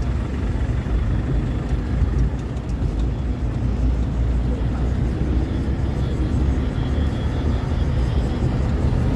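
Passenger train running along the track, heard from inside the carriage: a loud, steady low rumble of wheels and running gear with rushing air.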